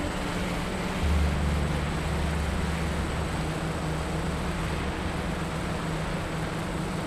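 DJI Phantom V1.1.1 quadcopter's motors and propellers humming steadily in flight, heard from the camera on board, with wind noise on the microphone. A deeper rumble swells about a second in and eases off after a few seconds.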